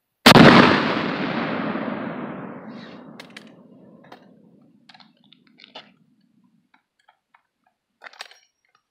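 A single shot from a 12-gauge black-powder shotgun, a loud sudden boom that fades away slowly over about four seconds. A few faint clicks follow near the end.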